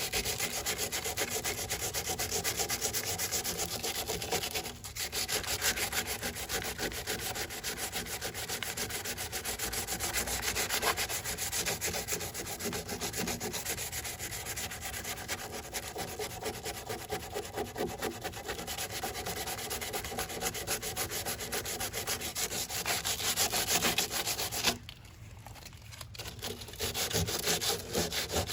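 Sandpaper rubbed by hand over cured Bondo body filler on a car body panel, 80-grit paper held without a sanding block, in steady rapid back-and-forth strokes. The strokes stop for about a second and a half near the end, then resume.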